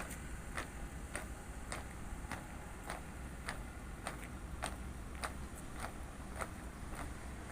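A flag-raising squad marching in step: their shoes strike the ground together in sharp, even steps, a little under two a second.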